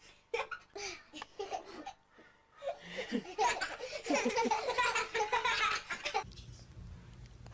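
People laughing: a few short bursts at first, then several seconds of loud, continuous laughter that cuts off suddenly about six seconds in.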